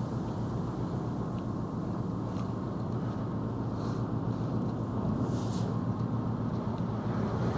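Large car ferry's engines running: a steady low drone of several even tones, over a hiss of wind and water.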